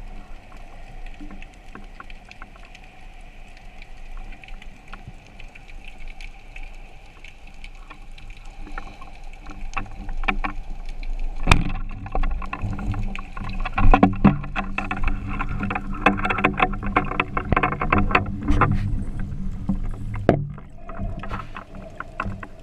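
Underwater sound with a steady drone. About halfway through, a dense crackle of clicks and knocks sets in.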